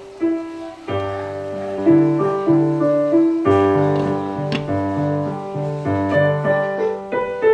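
Background piano music: a melody of held notes over a repeating bass pattern, resuming after a short lull about a second in.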